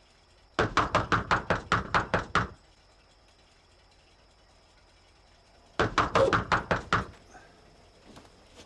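Rapid, loud knocking on a door in two bouts: about ten knocks, a pause of some three seconds, then about seven more. A few faint taps follow near the end.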